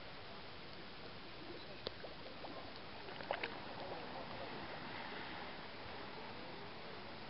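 Steady underwater water noise over a reef, heard through a submerged camera, with a sharp click about two seconds in and a short cluster of clicks about a second and a half later.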